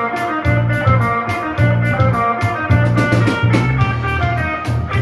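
Background music: guitar over bass notes and a drum kit keeping a steady beat.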